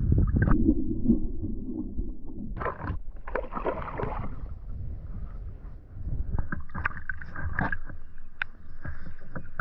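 River water sloshing and gurgling over a waterproof camera skimming the surface beside a moving canoe. The camera dips briefly under the surface, and the sound is a run of uneven splashes and gurgles, loudest and deepest in the first couple of seconds.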